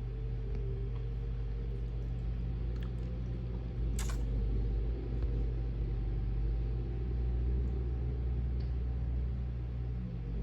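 Low, steady engine rumble at idle, with one sharp click about four seconds in.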